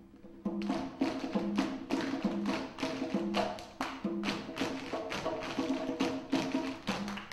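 Many tap shoes striking a stage floor together in fast, syncopated rhythms, with live jazz accompaniment of pitched bass-range notes and hand percussion. The taps drop out for a moment at the start, then come back about half a second in.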